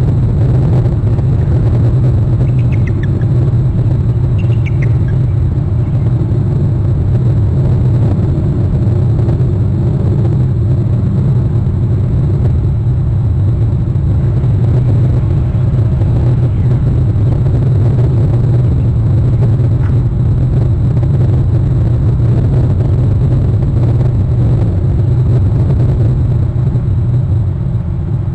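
Steady, loud low rumble of outdoor noise on the nest microphone, with two brief series of high chirps about three and five seconds in, bald eagle calls at the nest.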